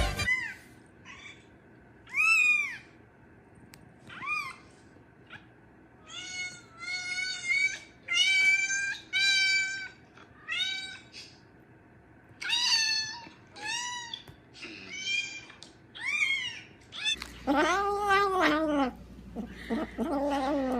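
A cat meowing over and over: short, high meows that rise and fall in pitch, coming faster in a run in the middle, then a longer, lower meow near the end.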